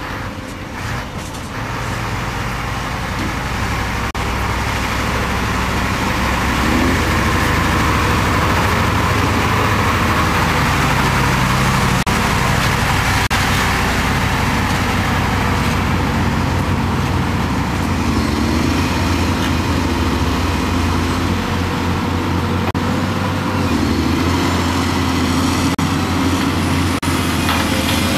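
Diesel engine of a four-axle Mercedes-Benz dump truck running as the truck drives across the site. The drone grows louder over the first few seconds and its pitch shifts up and down several times. A few sharp knocks come near the end.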